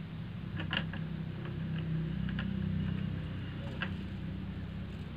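A steady low machine hum, a little louder a couple of seconds in, with a few faint light ticks.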